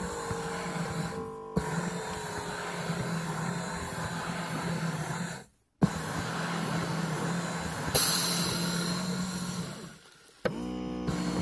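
Electric foot massager's motor running with a steady whirring hum as its kneading nodes turn, heard from inside the machine. It cuts out suddenly for a moment about halfway through. Near the end there is a brief louder rasp, then the motor dips and starts again with a rising whine.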